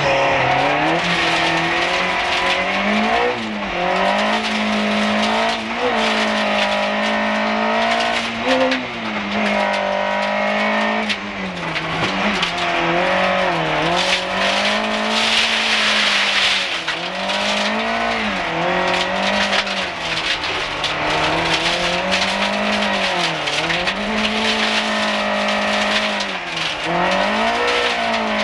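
Group H rally car engine heard from inside the cabin, revving hard and repeatedly dropping in pitch and climbing again with each gear change or lift-off along a gravel stage. A burst of hissing tyre and gravel noise comes about halfway through.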